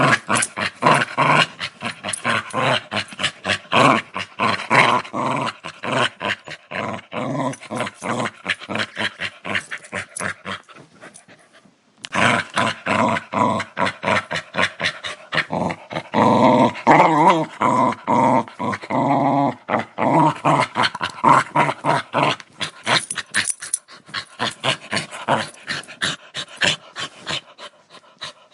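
A dog growling aggressively in a continuous, rapidly pulsing rumble, with a brief pause a little before the middle.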